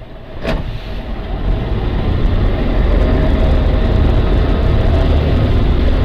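Motorboat engine running with a heavy low rumble that builds over the first two seconds or so and then holds steady. A single sharp knock sounds about half a second in.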